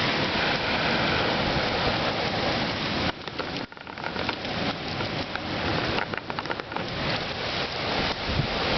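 Strong storm wind gusting and buffeting the microphone, a dense rushing noise that drops out briefly about three and a half seconds in, then builds again.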